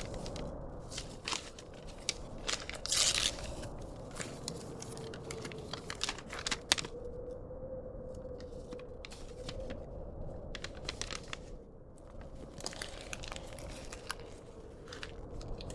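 Paper crinkling and tearing as an envelope is opened and a damp letter unfolded and handled, in clusters of crisp crackles. A steady storm ambience runs underneath.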